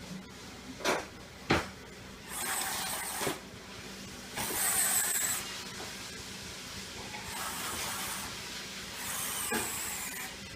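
Two sharp clicks, then the small electric gear motors of an RC 963 track loader model running in four short bursts of about a second each, whining.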